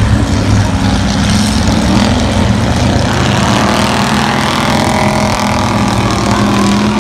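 Several race-car engines running loud and steady as the cars lap a dirt track towing trailers in a figure-eight trailer race, one engine's pitch creeping up near the end.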